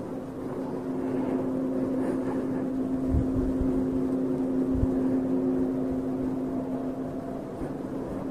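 A steady, low droning hum made of several pitched tones held together without a break, with a few dull low thumps about three to five seconds in.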